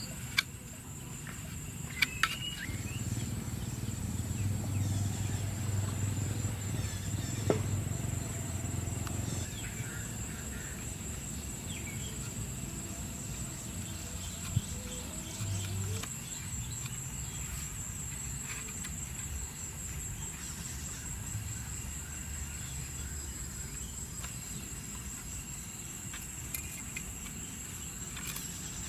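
Insects trilling in one steady high-pitched drone. A low rumble swells over the first third and fades, and a few sharp clicks and knocks come through.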